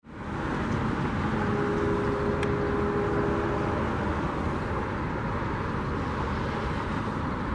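Freight train's lead diesel locomotives passing close by, engines running under a steady rumble of wheels on rail, fading in at the start.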